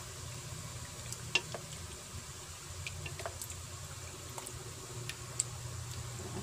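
Wooden spoon stirring pork pieces through a liquid soy sauce and calamansi marinade in a bowl: soft wet squelching and sloshing with a few light clicks, over a steady low hum.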